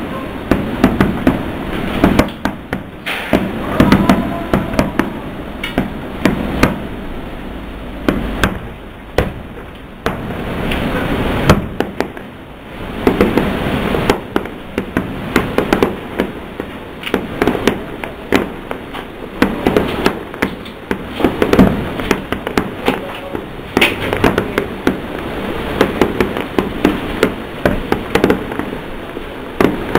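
Aerial fireworks shells bursting: a long run of sharp bangs in irregular, quick succession, some clustered several to the second, with a rumbling haze between them.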